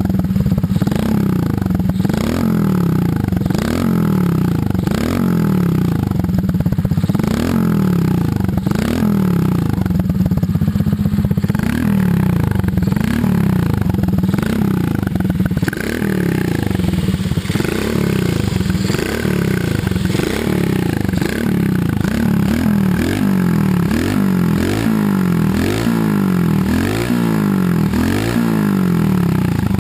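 Honda Monkey's small single-cylinder four-stroke engine being revved again and again, its pitch climbing and falling back about once a second, a little quicker in the second half.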